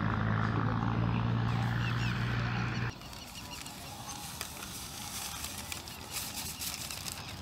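A steady low hum with overtones that cuts off abruptly about three seconds in, followed by the faint grainy hiss and fine ticking of salt poured from a packet into a soil pit onto a wrapped body, denser near the end.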